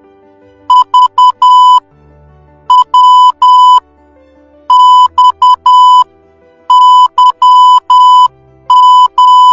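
Morse code beeps: one steady electronic tone keyed in dots and dashes, one letter group about every two seconds, spelling V, W, X and Y, with Z starting near the end. Faint background music plays underneath.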